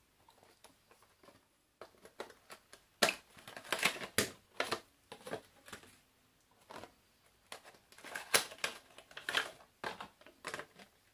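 Small cardboard boxes and clear plastic band cases being handled and opened: irregular clicks, taps and crinkles of thin plastic, busiest about three seconds in and again near the end.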